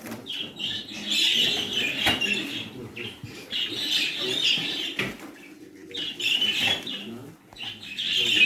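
Exhibition budgerigars chattering in bursts, with wing flutters and a couple of sharp knocks.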